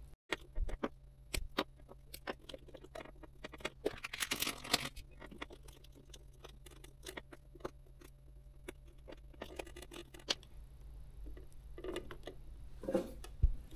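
Small clicks, taps and rustles of hands and a pointed tool working wire and thread along a stiff plastic hat brim under a sewing machine's presser foot, with two short crinkling rustles, over a steady low hum.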